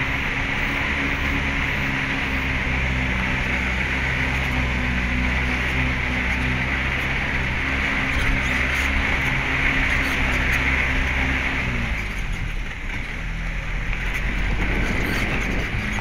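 A vehicle's engine runs steadily while driving on a dirt road, under constant wind and road noise. About twelve seconds in, the engine note drops away briefly, then comes back.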